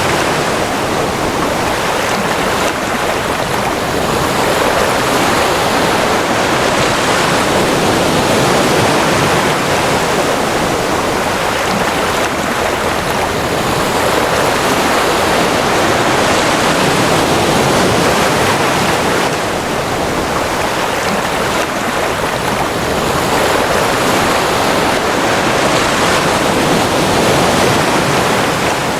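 Ocean surf washing in: a continuous rushing hiss of waves that swells and eases slowly, cresting roughly every eight to ten seconds.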